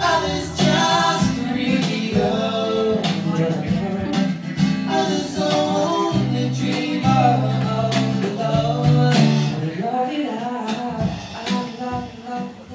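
Live acoustic pop song: a male voice singing over a strummed acoustic guitar, heard from the audience.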